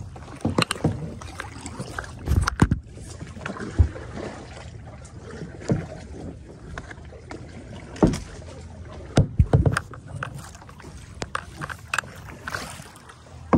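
Paddling a plastic sit-on-top kayak: water noise from the paddle strokes, broken by irregular sharp knocks and thumps of paddle and gear against the hull, along with handling rub as the phone presses against clothing.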